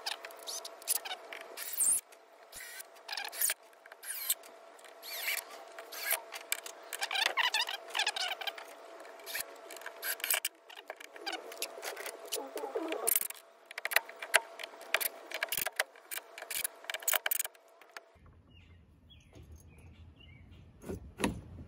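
Irregular clicks, scrapes and squeaks of hands-on work: cam cleats being set on a wooden board and fastened with a cordless drill-driver.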